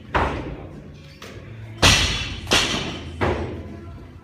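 A barbell loaded with bumper plates dropped onto a rubber gym floor, then a run of heavy thuds and slams. The loudest thud comes a little under two seconds in, followed by two more about 0.7 s apart.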